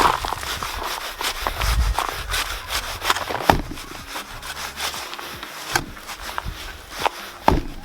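Compost being scooped and tipped into a planting container: irregular scraping and rustling with a few sharp knocks, the loudest near the end.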